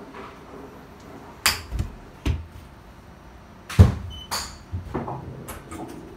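A golf wedge shot in an indoor golf simulator: the 56-degree wedge strikes the ball off the hitting mat and the ball thuds into the screen, heard as a handful of sharp knocks and thuds, the loudest a little past halfway.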